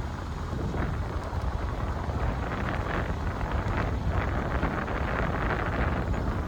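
Wind buffeting the microphone: a steady low rumble and hiss.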